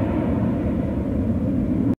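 Steady low rumble of a departing jet airliner's engines, mixed with wind noise, cutting off abruptly near the end.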